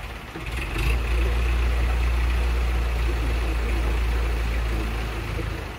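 Heavy diesel engine of the loading vehicles comes up sharply to a steady, deep running sound about a second in, holds level, and eases off near the end.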